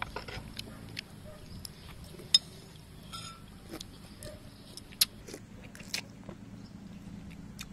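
Children eating: close chewing and mouth sounds with scattered small clicks, two sharper clicks about two and a half and five seconds in, over a faint low steady hum.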